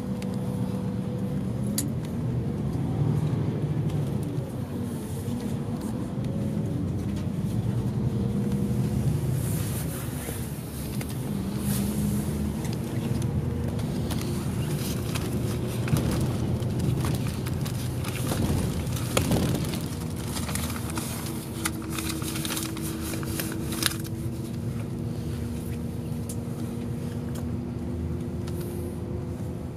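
Diesel engine and road noise heard inside a highway coach bus cabin, running steadily, with the engine note shifting in pitch a few times as the bus changes speed. Short clicks and rattles come and go in the middle.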